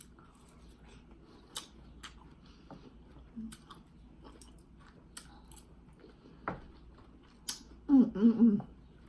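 Quiet, scattered mouth clicks and smacks, about six in all, with a short voiced sound about eight seconds in.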